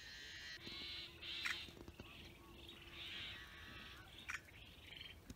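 Yellow-headed blackbird calling: a faint series of harsh, buzzy rasps, with a couple of short clicks in between.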